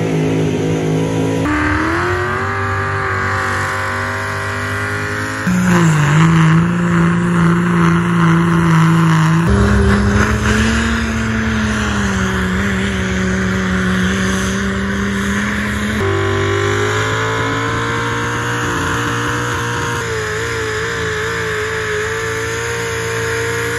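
Pickup truck engines running at high revs under heavy load while pulling a weight sled, the pitch holding steady or sagging and recovering. The sound changes abruptly three or four times as it cuts from one truck's run to the next.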